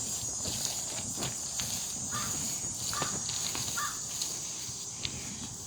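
Outdoor ambience: a steady high insect drone, with three short calls, crows cawing, about two, three and four seconds in.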